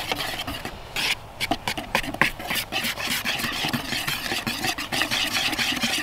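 Wire whisk beating boxed cake mix and Sprite in a plastic bowl: rapid, scratchy strokes of the wires against the bowl and through the fizzy batter.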